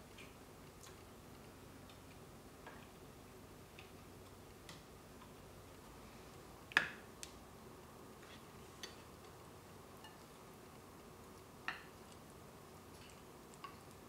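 Metal spoon clinking against bowls and a plate while eating: a scattered series of faint taps, the loudest about seven seconds in and another near twelve seconds, over quiet room tone.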